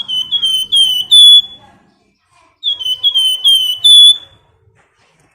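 Flamboyan songbird singing its clear whistled 'nyiul' call: two phrases, each of four or five quick down-slurred whistles ending in a longer, louder held note, about a second apart.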